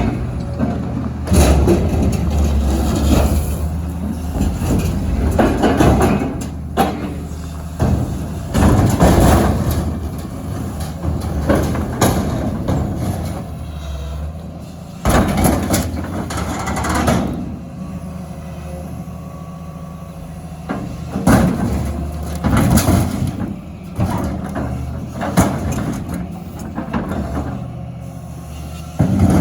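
A heavy diesel machine's engine running steadily, with repeated loud crunching and banging of metal as an excavator works over metal dumpsters.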